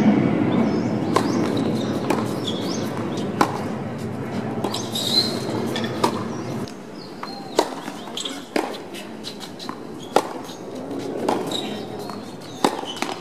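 Tennis rally: sharp cracks of racket strings hitting the ball, about one every second or so. A steady low rushing noise runs under the first half and stops abruptly about halfway through.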